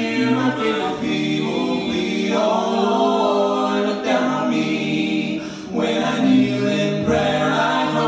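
Mixed a cappella gospel quartet, three men and a woman, singing close harmony without instruments, holding long chords that shift every second or two.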